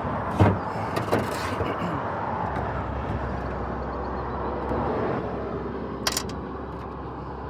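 Steady road traffic noise from passing vehicles, with a few sharp knocks or clicks: the loudest about half a second in, another about a second in, and one near six seconds.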